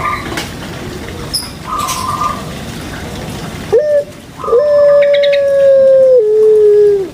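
Puter pelung (ringneck dove) giving its long call: a short rising note, then one long drawn-out note held steady for about two seconds, which steps down to a lower pitch for a further second before falling off. Before it, a noisy stretch with a couple of brief, higher coos.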